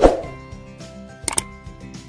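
Outro music with steady held notes, opening with a sharp percussive hit and with a quick double click about a second in.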